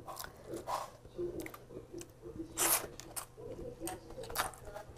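Close eating sounds of a mouthful of fried glass noodles and fish eaten by hand: chewing, lip smacks and wet squishy clicks, picked up by a clip-on microphone on the eater's chest. A short louder hiss comes just past halfway.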